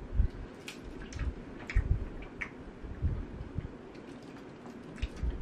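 Eating a chocolate bar held in a foil wrapper: scattered small clicks and crinkles of chewing and the foil rustling in the hand, with a few soft low thumps.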